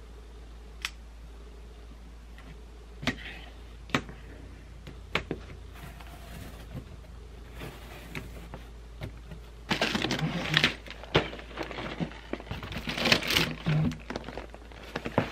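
A large cardboard LEGO box being opened: a few sharp clicks and snaps as the seal and flaps are worked loose, then two spells of cardboard scraping and rustling as the white inner boxes are slid out and lifted, about ten and thirteen seconds in. A steady low hum lies underneath.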